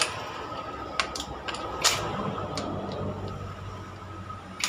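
A few sharp metallic clicks as a socket on a cordless impact driver is fitted onto the flywheel nut of a Suzuki Gixxer 150 engine, over a low steady hum.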